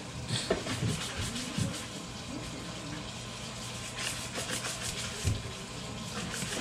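Hand dishwashing in a stainless steel sink: water from a running tap splashes steadily as a plastic plate is washed and rinsed in soapy water. There are a few light knocks of dishes, and a spell of quick scrubbing about four seconds in.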